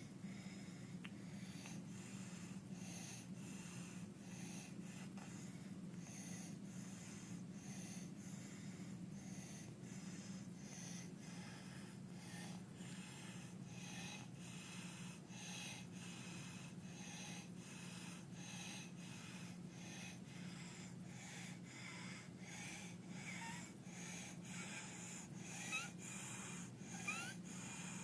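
A child with croup breathing noisily, a harsh stridor sounding with each breath in a regular rhythm, the sign of a narrowed upper airway. A few short rising squeaks come near the end.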